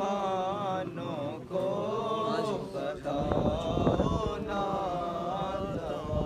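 Men chanting a Shia noha, a mournful sung lament, with a slow wavering melody. From about three seconds in, dense low thuds of hand-on-chest matam beating join the chant.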